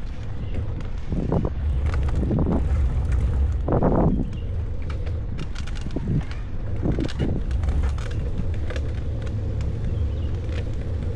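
Wind buffeting the microphone of a moving bicycle: a steady low rumble with several louder gusts, and faint clicks and rattles from the bike.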